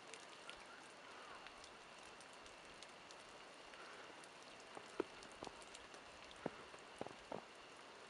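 Water drops falling and tapping irregularly over a faint steady hiss, with a handful of louder taps in the second half.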